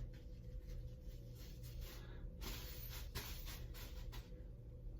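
Faint scratchy rustling and rubbing of a plastic bag and a fabric do-rag being wrapped over the head, over a low steady hum.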